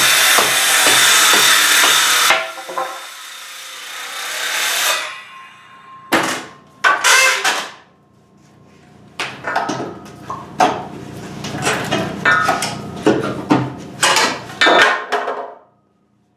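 A power saw cutting through wood, stopping about two seconds in, followed by a series of irregular sharp knocks and clatters of wood being struck and broken away during wall demolition.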